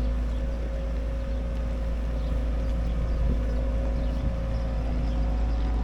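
Vehicle engine running at a steady speed: a low rumble with a steady hum over it.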